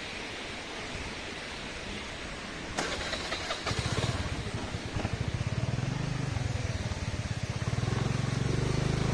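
A motor vehicle engine comes in about a third of the way through after a knock, running with a fast, low, even pulse that grows louder, over a steady rush of wind noise.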